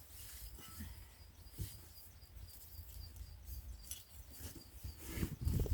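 Faint outdoor background: a small bird chirping over and over in short high notes at a steady pace, with scattered soft knocks and rustles from digging in soil and a low rumble that swells near the end.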